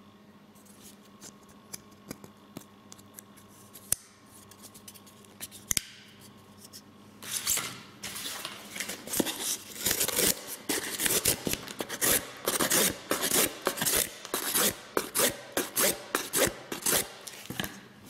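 Folding pocket knife blade sawing and slicing through corrugated cardboard in a dense run of rasping strokes, starting about seven seconds in. Before that, a few sharp clicks as the knife is handled.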